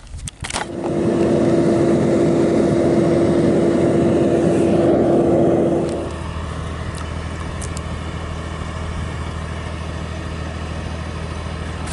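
A motor running. For the first five seconds or so there is a loud rushing noise with one steady hum over it. About six seconds in it drops suddenly to a quieter, even low hum.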